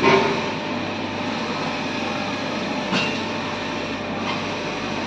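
Richpeace single-head industrial sewing machine running steadily, a continuous mechanical clatter with a hum. It gives a sharp knock at the start and a smaller one about three seconds in.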